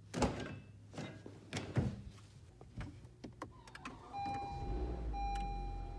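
Car door being opened by its handle and someone getting into the seat: a run of latch clicks, knocks and thumps. About four seconds in, a steady electronic dashboard chime starts, broken by brief gaps, over a low hum.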